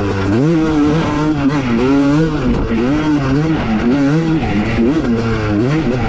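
Honda CR250 single-cylinder two-stroke dirt bike engine, with a cone-pipe exhaust, being ridden hard: the revs rise and fall again and again as the throttle is worked.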